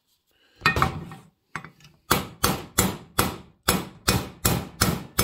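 Ball-peen hammer gently tapping a socket set on the main bearing of a heated magnesium Husqvarna 394XP crankcase half: one knock about a second in, then a steady run of light taps about two to three a second. The bearing is not moving, a sign the case is not yet hot enough to let it go.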